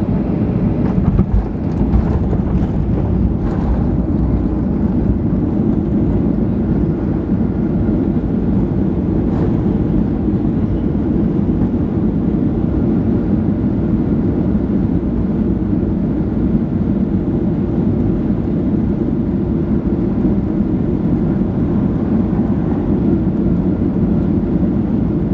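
Boeing 737-700 touching down, heard from inside the cabin: a few knocks from the landing gear in the first few seconds, then a steady low roar of the engines and rushing air as the airliner rolls out and slows on the runway.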